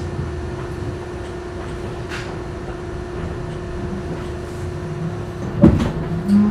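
R62A subway car standing at the platform, its onboard equipment humming steadily with a low rumble. Two sharp clunks come near the end.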